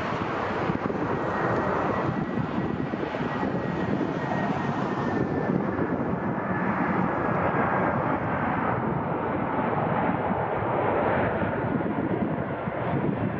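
Jet airliner engines passing: a steady, loud rushing noise with a faint whine that slowly falls in pitch, the top end dulling in the second half.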